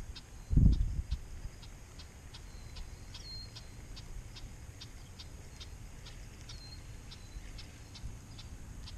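Spinning reel being cranked during a slow lure retrieve, giving a light regular ticking about three times a second. A dull thump about a second in, with a couple of faint bird chirps.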